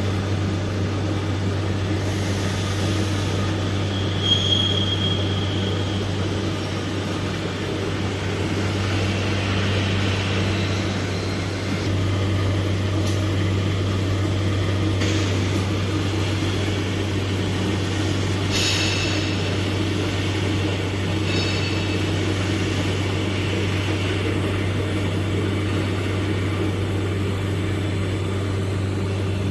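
Single-head edge milling machine running, its milling head travelling along the edge of a clamped plate, with a steady motor hum. A few brief higher-pitched squeals rise above it, about four seconds in and again around eighteen seconds.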